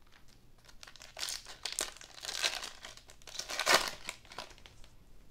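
Foil wrapper of a Panini Select basketball card pack crinkling and tearing as it is pulled open by hand, in crackly bursts from about a second in, loudest near the end.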